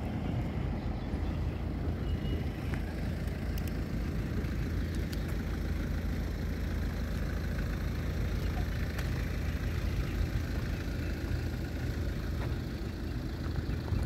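Steady low rumble of heavy trucks and earth-moving machinery running, with a few faint clicks.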